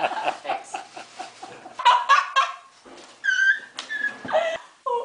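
A teenage girl laughing, then giving two short high-pitched squeals of excitement over a gift.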